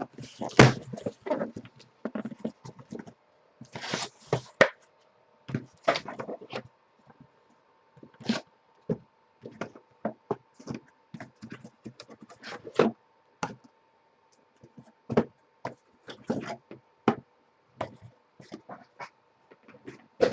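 Cardboard boxes of football trading cards being handled and opened: scattered knocks, taps and short rustles of cardboard and packaging, with a faint steady tone coming in about halfway.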